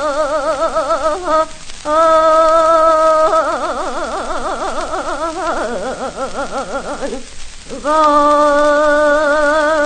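Solo female voice singing Seodo sori, the Korean western-provinces folk-song style, from an old 78 rpm gramophone record. She holds long notes with a wide, heavy vibrato, dips lower about five and a half seconds in, and pauses briefly for breath about a second and a half in and again about seven seconds in.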